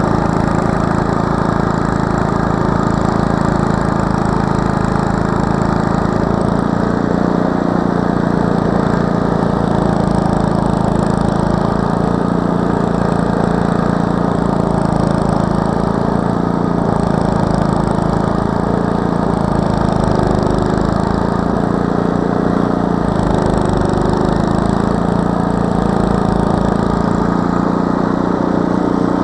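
Walk-behind snowblower's engine running steadily under load as its auger and impeller throw snow, the engine note wavering briefly a few times in the second half.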